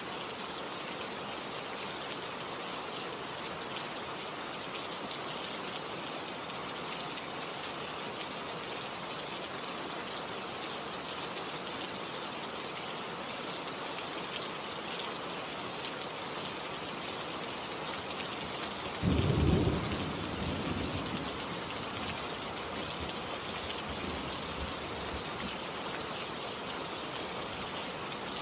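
Steady rain falling, an even hiss. About two-thirds of the way in, a sudden loud clap of thunder booms low and rumbles away over several seconds.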